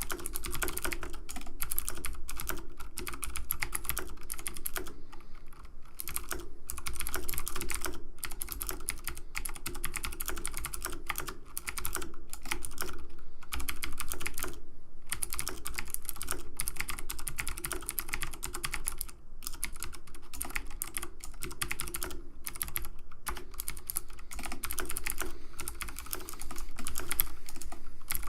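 Keys being typed rapidly on a computer keyboard, a dense stream of clicks broken by a few short pauses.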